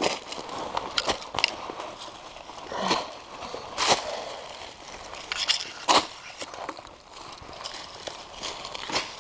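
Dry fallen leaves and loose dirt crunching and scraping under hands and feet climbing a steep slope, in irregular sharp crunches a few seconds apart.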